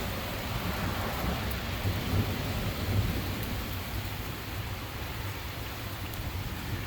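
Heavy rain falling steadily, with a low rolling rumble of thunder that swells over the first few seconds and then dies away.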